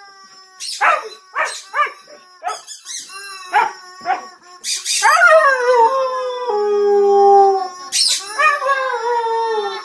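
Siberian husky howling along to a squeaky toy: a run of short yips and barks for about four seconds, then a long howl that falls in pitch and levels off, and a second falling howl near the end.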